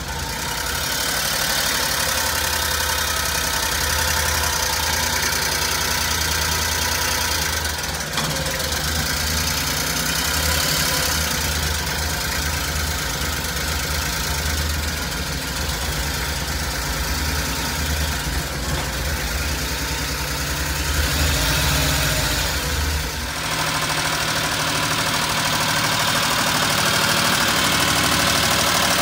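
The 1993 Suzuki Carry's small three-cylinder engine idling steadily. The deep low hum drops away about two-thirds of the way through, while the lighter mechanical running noise carries on.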